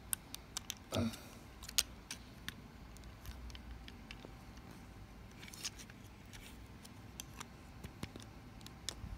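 Plastic parts of a 1:200 scale snap-together Boeing 787-8 model clicking and tapping as they are handled and pushed together by hand: scattered small clicks, the sharpest about two seconds in.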